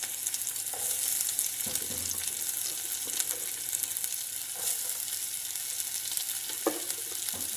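Chopped red onions frying in hot oil with curry leaves: a steady high sizzle with fine crackling.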